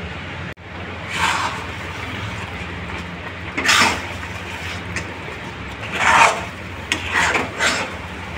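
Spatula scraping the bottom of a black kadai while stirring a thick, sticky mixture of cooked broken wheat (dalia), sugar and ghee. There are several rasping scrapes a second or two apart over a steady low hum.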